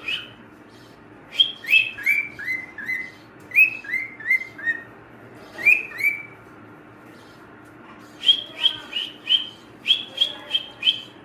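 Albino cockatiel calling: runs of short chirps, each dropping in pitch, two to five in a row with pauses between runs.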